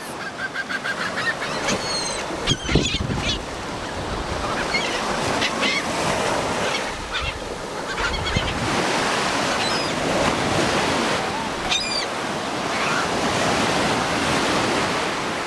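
A flock of seagulls calling, many short cries one after another, over the steady wash of surf.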